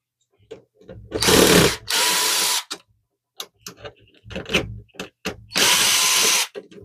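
Cordless drill/driver with a Torx T10 bit backing screws out of an inkjet printer's plastic casing, running in three short bursts of under a second each, two close together and one near the end. Small clicks and handling noises come between the bursts.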